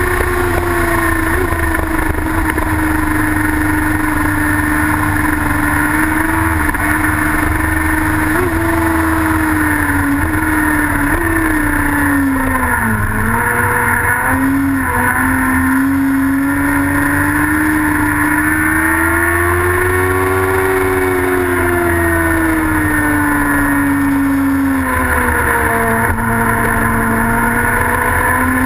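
Racing sidecar outfit's engine running hard at high revs, with brief blips as it changes gear. The revs drop sharply as it slows for a corner about halfway through, then climb again, swell and fall once more through the following bends.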